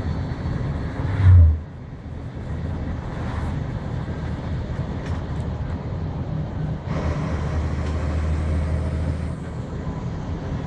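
Volvo B7R coach heard from inside the cabin: the steady low drone of its diesel engine and road noise while driving. A loud low thump comes about a second in. About seven seconds in, the engine drone strengthens for a couple of seconds.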